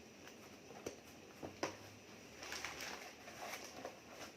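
Faint handling noise from gift packaging being opened: a few small clicks and light rustling.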